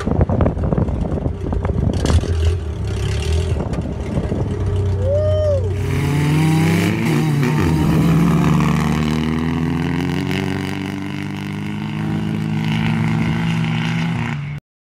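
Jeep engines under way on dirt: first a 1962 Willys Jeep running while driving, with wind buffeting the microphone; then an engine revving up, its pitch rising, and running on at a steady pitch. The sound cuts off suddenly near the end.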